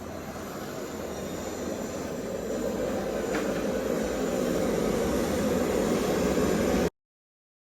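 Gas torch flame burning with a steady rushing noise, heating a tractor flywheel's new ring gear so it can be shrink-fitted. It grows louder and stops abruptly near the end.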